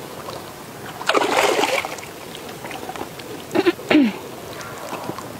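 A long-handled fish net is swept through shallow pond water, making a brief splash about a second in. A little over two seconds later come two short, loud voice sounds, the second one falling in pitch.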